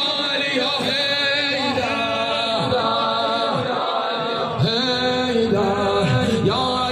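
A mourning lament (noha) chanted by a single voice in long, wavering held notes.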